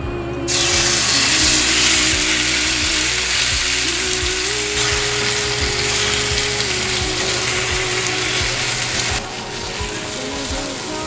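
Raw chicken thigh pieces dropped into hot oil in a frying pan, setting off a loud sizzle about half a second in while they are stir-fried; the sizzle eases somewhat near the end.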